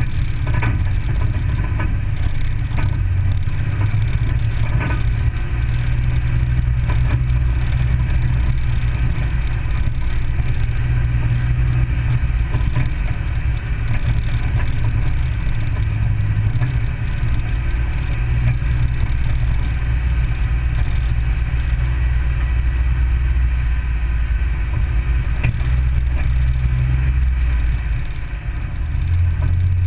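Vehicle engine running at low, steady speed along a gravel road, with a strong low drone that shifts slightly in pitch with the throttle, over the hiss of tyres on gravel and a few faint clicks.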